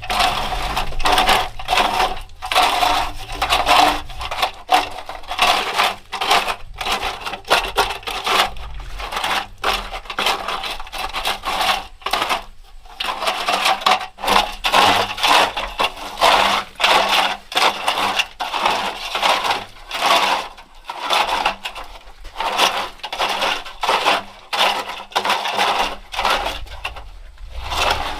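A hand tool scraping and clinking against a hard, gritty surface in quick, irregular strokes, several a second, with brief pauses.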